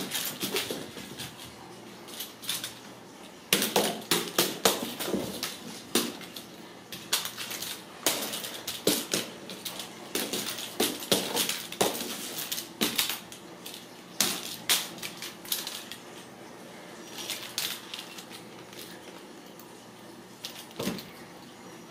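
Irregular clicks, taps and knocks of ragdoll kittens playing on a hardwood floor and stairs: paws and claws scrabbling on the wood and a wand toy knocking against it, in clusters with a quieter stretch about two-thirds through.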